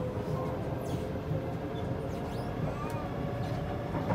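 Kawasaki C751B metro train heard from inside the car while running: a steady rumble of wheels on track, with a steady motor tone that fades out about half a second in and a few faint high squeaks.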